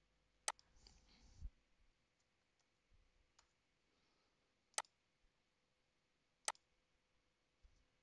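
Computer mouse clicks: three sharp, isolated clicks a second or more apart, with a fainter one between them, over near silence.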